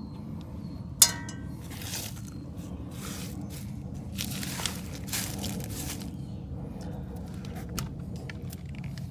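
A sharp metallic clink about a second in that rings briefly, then irregular scraping and handling noises of parts being moved, over a steady low hum.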